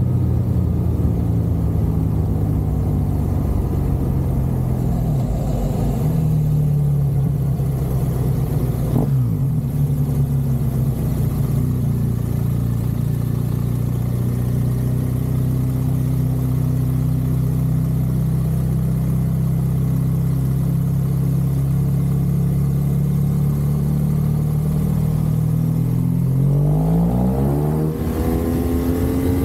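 BMW R1200 GSA's flat-twin boxer engine running at steady road speed, then revving up with a clear rise in pitch near the end.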